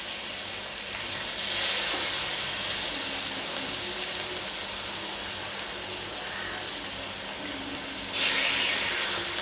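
Chicken pieces sizzling in hot oil in a pan, a steady hiss that surges louder twice, about a second and a half in and again near the end.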